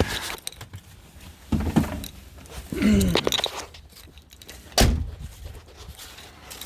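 A few knocks and shuffling handling sounds, then a door shutting with one heavy thunk about five seconds in.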